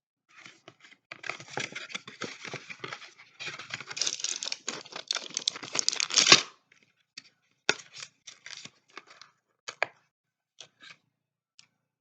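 Crinkling and tearing of medicine packaging being handled: a dense crackle for about six seconds that stops abruptly, followed by scattered light clicks and taps.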